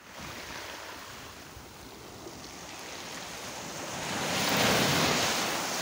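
Small waves breaking and washing up a pebbly beach, one surge swelling to its loudest about four and a half seconds in.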